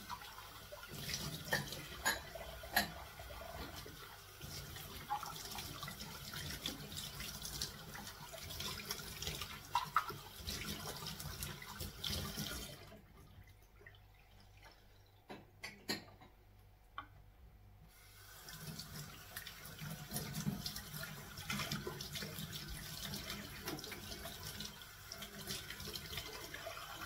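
Kitchen tap running into a stainless steel sink while dishes are rinsed, with scattered clinks of the dishes. The water stops for about five seconds around the middle, with only a few clinks, then runs again.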